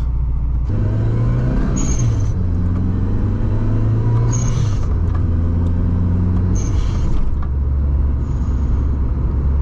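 1993 Lancia Delta Integrale Evo 2's turbocharged four-cylinder heard from inside the cabin, pulling through the gears. The engine note climbs, then drops at three gear changes about two, four and a half and seven seconds in. Each change brings a short high hiss from the turbo.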